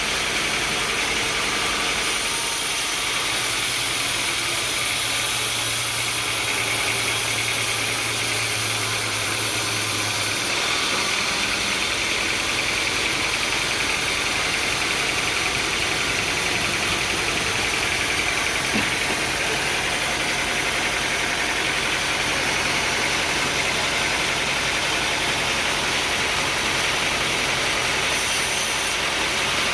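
Sawmill machinery running steadily: a continuous engine-like drone with a dense hiss, its low hum shifting slightly a couple of times.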